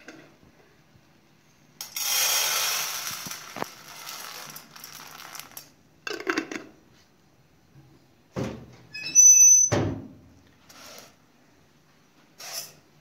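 Dry lentils poured from a glass jar into an aluminium pot: a steady rattling hiss of grains on metal lasting about four seconds. Afterwards come a few knocks and a sharp clank with a brief metallic ring, the loudest sound, a little before ten seconds in.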